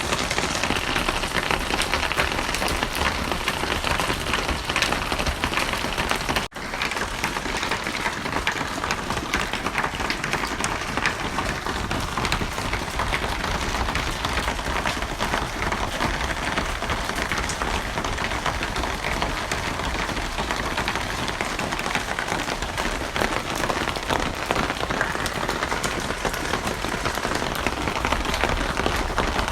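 Steady heavy rain falling on a surface, a dense continuous patter of drops. It breaks off for an instant about six and a half seconds in.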